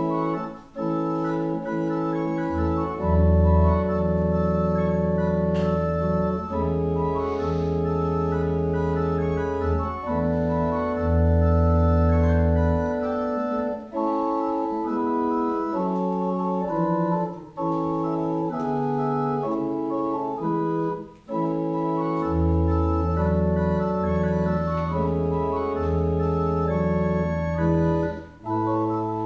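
Organ playing a slow prelude of sustained chords, with deep held bass notes through much of it and brief pauses between phrases.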